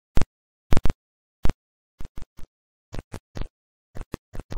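A string of short, sharp electronic hits and crackles, irregularly spaced with dead silence between them: sound effects for an animated logo reveal.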